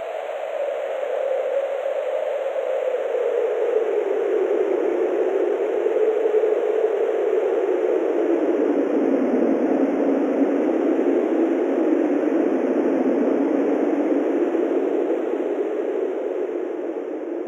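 Synthesized wind: a steady rush of filtered noise whose pitch slowly sinks, swelling a little in loudness and easing off near the end.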